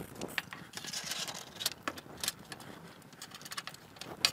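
Perforated metal base cover of a 3D printer being handled and fitted into place: scattered light clicks, rattles and scrapes of sheet metal against the printer frame, with a sharper click near the end.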